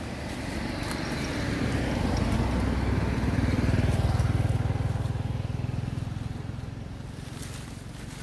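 A motor vehicle passing by on a road: its engine grows louder, is loudest about four seconds in, then fades away.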